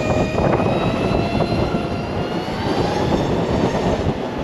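LiveWire electric motorcycle under way, its motor giving a thin high whine that climbs slowly in pitch as it gathers speed, over heavy wind rush on the microphone.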